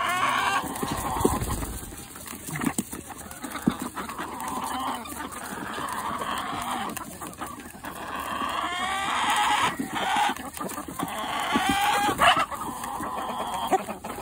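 A flock of chickens clucking and squawking in a crowd, with repeated calls throughout and scattered sharp taps of beaks pecking at a hand-held apple.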